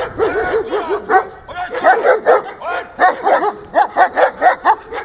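German Shepherd barking over and over in quick short barks, about three a second.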